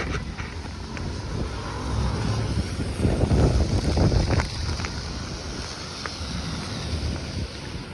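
Gusty hurricane wind buffeting the microphone in uneven rumbling gusts, strongest a few seconds in, over a steady hiss, with a few sharp ticks.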